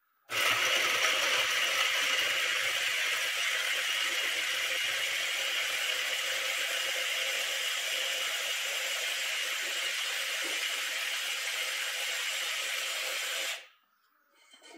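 Homemade battery-powered mixer grinder, its 24 V DC motor spinning the blades in a small jar and grinding chopped wet food into a paste. It starts just after the beginning, runs steadily for about thirteen seconds, and stops abruptly near the end.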